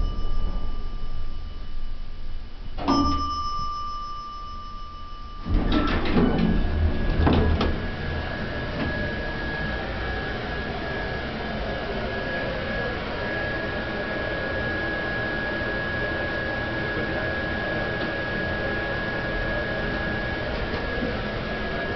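An elevator car hums as it rides, and a single chime rings about three seconds in as it reaches the floor. The doors slide open with a sudden rush of sound about five and a half seconds in. From there a steady fan whir with a thin high whine runs on: the blower that keeps an inflatable Christmas carousel decoration inflated.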